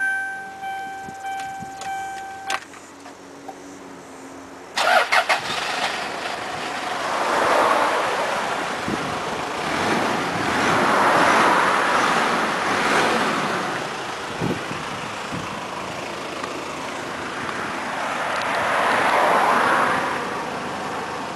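A steady warning tone sounds for the first two seconds or so; about five seconds in, the Toyota Granvia's 1KZ 3-litre turbo-diesel engine cranks briefly, catches and settles into a run at idle. A start-up test for exhaust smoke.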